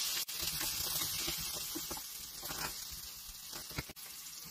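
Potato chunks frying in oil in a pan: a steady sizzle with faint small crackles, growing fainter toward the end.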